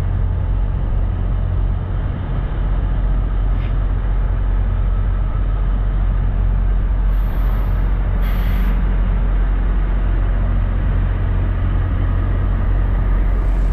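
Diesel semi-truck engines idling, a steady low rumble, with two short hisses of air about seven and eight seconds in.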